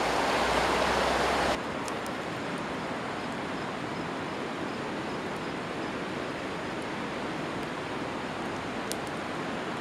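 Steady rush of flowing river water, louder for the first second and a half and then quieter and even, with a few faint clicks.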